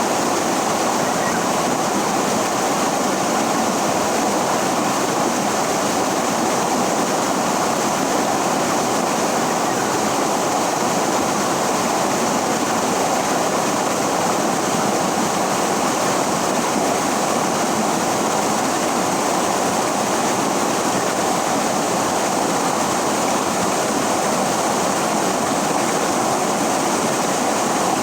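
River water rushing and flowing in a steady, unbroken wash.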